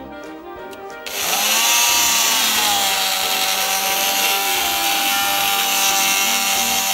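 Repaired Eltos BMP-570 oscillating multi-tool switched on about a second in, its motor whining up to speed and then running steadily, a sign that the tool now works. Faint music plays before it starts.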